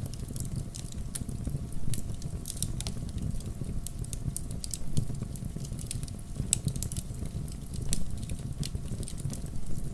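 Wood campfire burning: a steady low rumble of flames with irregular sharp crackles and a few louder pops.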